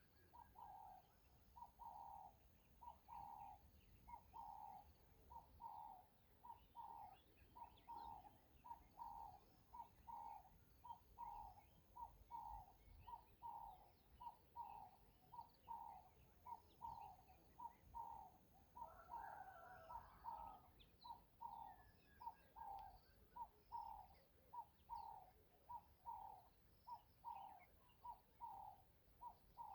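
A bird repeating a short, even call about twice a second.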